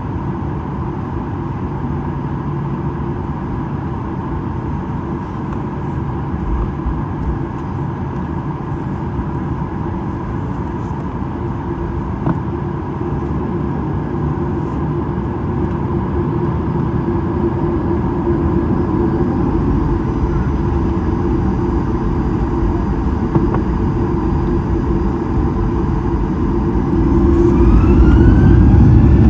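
Steady engine and air noise inside the cabin of a Boeing 737-800, slowly getting louder. Near the end it jumps in level as the CFM56 engines spool up with a rising whine, as power comes up for the takeoff.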